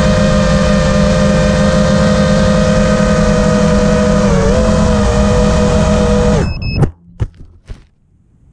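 FPV quadcopter's brushless motors and propellers whining steadily, heard from the onboard camera, with a slight dip in pitch partway through. About two-thirds of the way in the motor sound cuts off abruptly and a few sharp knocks follow as the quad comes down in the grass.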